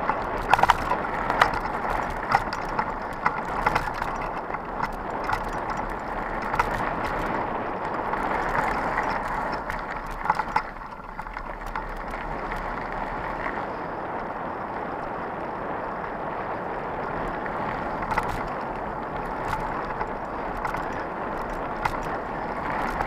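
Mountain bike rolling fast along a dirt trail: a steady rush of tyre and wind noise, with frequent sharp clacks and rattles from the bike jolting over bumps. The clacks thin out and the ride sounds smoother from about eleven seconds in.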